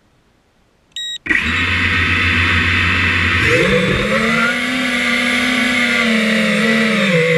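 A short electronic beep about a second in, then the electric motors of an FPV quadcopter start up with a steady hum and a high whine. The pitch climbs a little past halfway as the throttle comes up, and then wavers.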